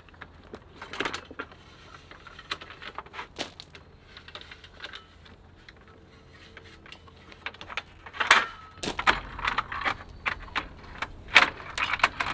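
Metal RV patio awning support arm being unhooked from its wall bracket and swung down: scattered metallic clicks and rattles, with louder clanks about eight and eleven seconds in.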